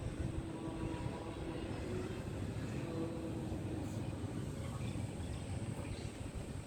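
Steady low rumble of city traffic, with a faint engine drone running through it.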